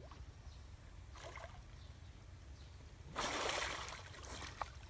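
A brief burst of water splashing, about two-thirds of the way in, lasting about half a second and fading off, over a low steady rumble.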